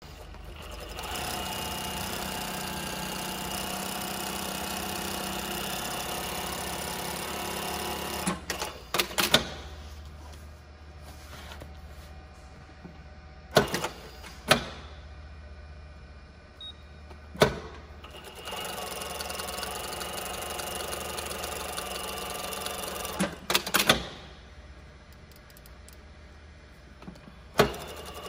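Brother Z-8560A-431 direct-drive zigzag industrial sewing machine stitching zigzag in two steady runs, a longer one of about seven seconds and a shorter one of about five seconds starting near the middle. Each run ends in a cluster of sharp mechanical clicks, and single clicks come in the pauses.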